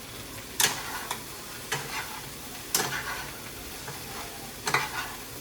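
A pot of chicken and vegetables sizzling in the frying, with spoons scraping and knocking against it about six times as the food is stirred.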